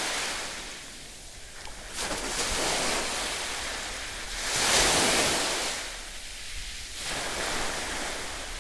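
Sea surf washing on a beach with splashing water, swelling and fading every two seconds or so, loudest about halfway through.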